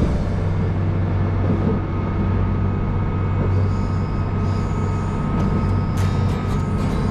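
Interior of a diesel railcar under way: the engine's steady low drone with a thin steady whine above it, and the running noise of the wheels on the rails, with a burst of sharp clicks about six seconds in.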